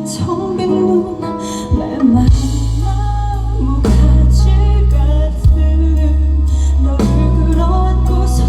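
Live band music with a woman singing over guitar and drums; a heavy bass comes in about two seconds in.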